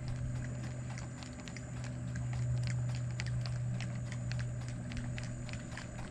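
Spinning reel being cranked while fighting a hooked fish: a rapid run of small ticks over a steady low hum.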